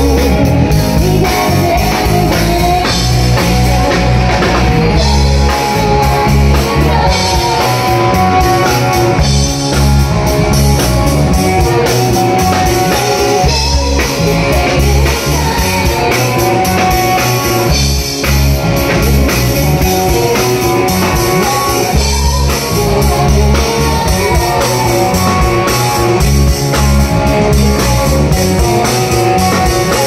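A live rock band playing loudly and without pause: drum kit, electric guitars and bass.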